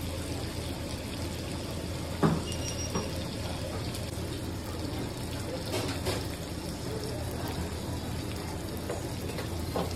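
A metal utensil knocking and scraping against the served seafood dish a few times, the sharpest knock about two seconds in, over a steady hiss and low hum of kitchen background.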